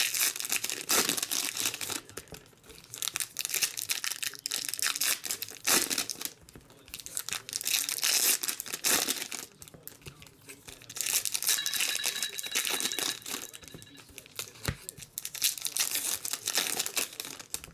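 Foil wrappers of Topps WWE trading card packs being torn open and crinkled by hand, in repeated bursts of crackling with short pauses between.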